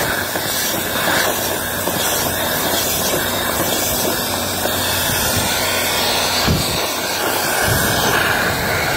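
Dryer-vent cleaning equipment running steadily: a loud, even rush of moving air through the vent duct, with a brief low bump about six and a half seconds in.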